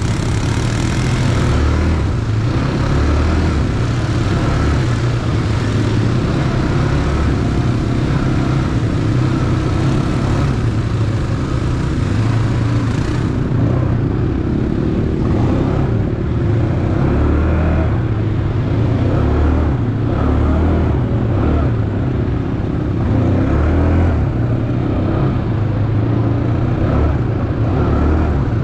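ATV engine running continuously while riding, a loud low rumble that swells and eases a little.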